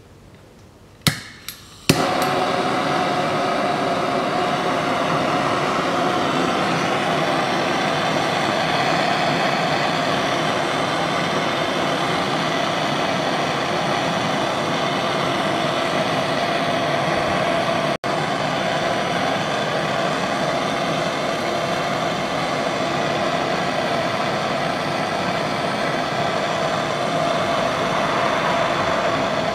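Handheld gas torch lit with a couple of sharp clicks about a second in, then burning with a loud, steady hiss that breaks off for an instant around the middle. It is heating a corroded, seized brake caliper guide pin to free it.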